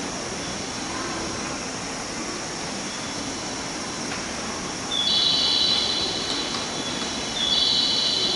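Steady running noise of a JR 201-series electric train standing at the platform. Two high steady tones of about a second and a half each, about five and seven and a half seconds in, are the loudest sounds.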